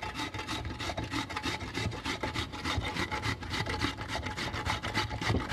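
A raw potato being grated on a stainless steel box grater: quick, even rasping strokes of the potato scraping across the metal teeth.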